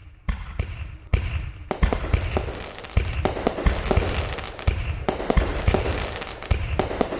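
Fireworks going off: a quick succession of sharp bangs and deep booms over continuous crackling, cutting off suddenly at the end.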